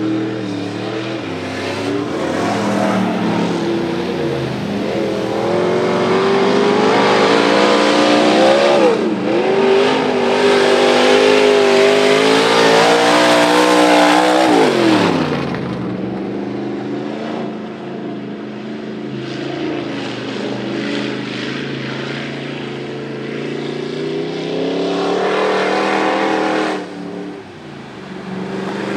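Mud-racing pickup truck engines at full throttle through a mud pit, the pitch climbing and dropping as they rev and shift. About halfway through the pitch falls sharply as one lets off.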